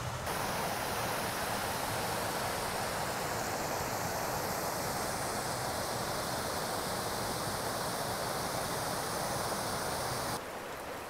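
Mountain creek rushing over a small cascade: a steady hiss of running water that cuts off abruptly near the end.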